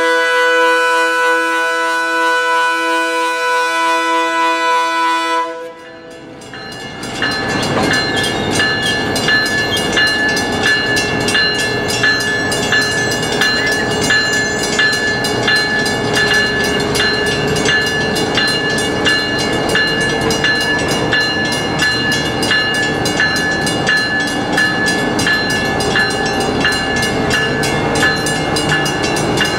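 Leslie RS3K three-chime air horn on a GP25 diesel locomotive sounding one long, loud blast that cuts off about five and a half seconds in. After a brief lull the locomotive and its freight cars roll slowly past, a steady rumble and clatter with a thin, steady high-pitched ring over it.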